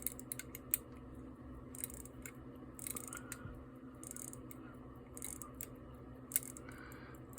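1886 Illinois pocket watch being wound at the crown: quiet, irregular clicking of the stem-winding ratchet, some clicks in quick little runs.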